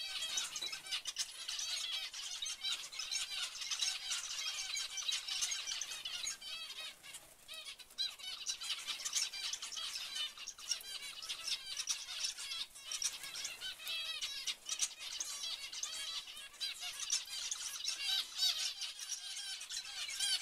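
A flock of zebra finches calling, with many short chirps overlapping continuously and a brief lull about seven seconds in.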